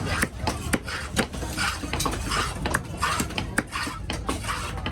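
A knife cutting trevally: irregular sharp chops and knocks on the cutting block mixed with short scraping strokes, over a low steady market rumble.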